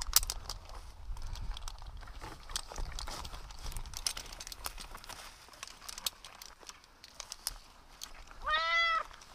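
Scattered clicks and scrapes of climbing rope, gear and bark as the climber moves up the oak trunk, then a domestic cat gives one meow near the end, the loudest sound.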